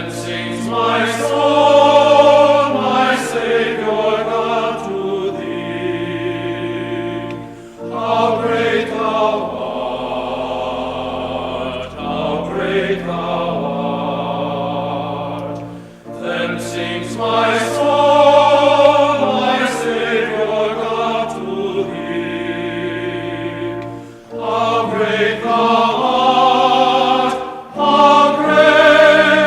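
Slow music with sustained, choir-like chords, moving in phrases that break off about every eight seconds.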